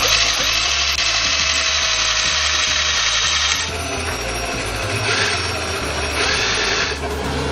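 Cordless drill running against the steel inner panel of a car's front body. It runs steadily for about three and a half seconds, then its sound changes a few times until near the end.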